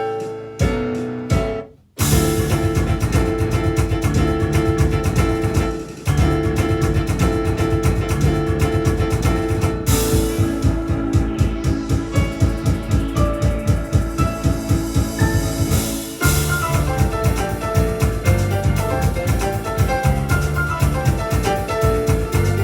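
Yamaha Electone electronic organ playing a fast, driving instrumental piece, with piano-like keyboard voices over a built-in drum-kit rhythm. It opens with a few sharp accented chords and a brief stop, then the full rhythm comes in about two seconds in.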